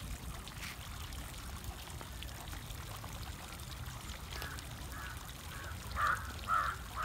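Small stone fountain trickling water into a lily pond, with a crow cawing over it again and again in the second half, about two calls a second, the loudest near the end.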